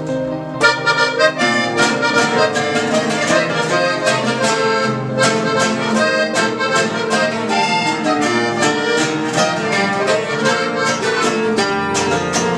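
Norteño-style instrumental playing: a piano accordion carrying the melody over two strummed acoustic guitars, one a twelve-string, in a steady rhythm. The guitar strumming comes in about half a second in, under accordion chords that are already held.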